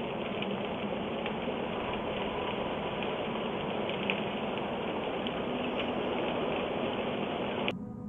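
Fire burning close to the porch, heard through a Ring doorbell camera's microphone: a steady rushing hiss of flames with scattered crackles and pops. It cuts off with a click near the end.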